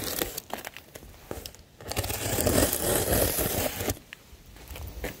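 Utility knife slitting the packing tape and cardboard of a shipping box, with crinkling and tearing of the tape; the loudest stretch comes about two to four seconds in.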